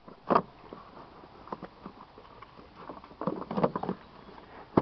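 Hands handling the plastic ECU box and its parts in a car's engine bay: a few short plastic knocks and rattles, one about a third of a second in and a cluster around three and a half seconds in.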